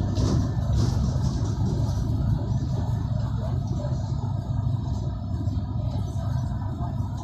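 Steady low rumble of a bus's engine and road noise, heard from inside the passenger cabin while it drives.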